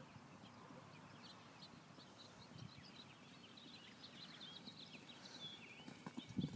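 Quiet open-air ambience with faint, scattered chirps of small birds. A few soft low thuds come in near the end.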